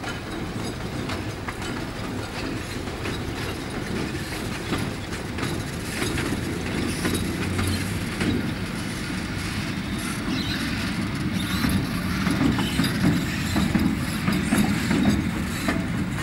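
An electric locomotive running light along the line, its wheels rumbling and clicking over the rails. The rail noise grows louder in the last few seconds.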